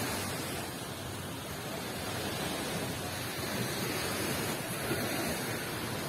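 Steady beach ambience: an even rush of gentle surf and breeze, with no distinct events.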